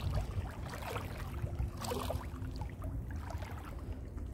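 Wind rumbling on the microphone over shallow seawater sloshing, with a few brief splashes.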